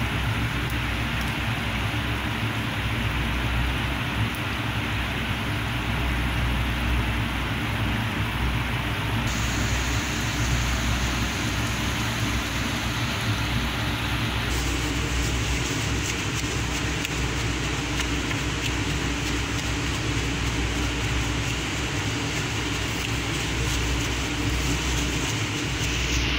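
Hot oil sizzling steadily as triangular sambusas deep-fry in a pan, with a steady low hum underneath.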